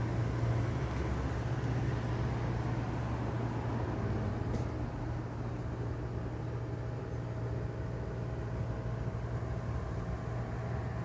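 Steady low background hum with a noisy wash over it, unchanging throughout.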